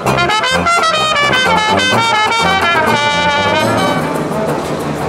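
Small brass band of trumpet, trombone and sousaphone, with banjo, playing a tune over a pulsing sousaphone bass line. The horn notes thin out about four seconds in.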